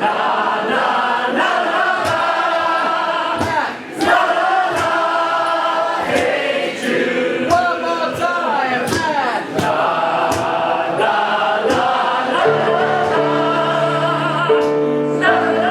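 Music: several voices singing together over a steady percussive beat, with held chords coming in low underneath about three-quarters of the way through.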